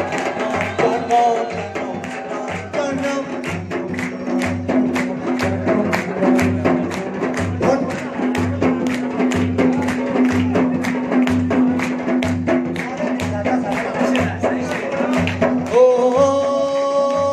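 Live Chitrali folk music: a dhol and hand percussion beat a quick steady rhythm, about four strokes a second, over a steady held tone. Near the end a male singer comes in on a long held note.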